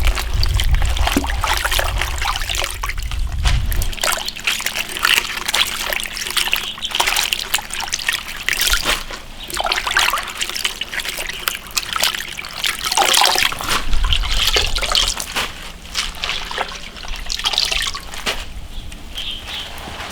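Water trickling and splashing irregularly as napa cabbage leaves are rinsed by hand.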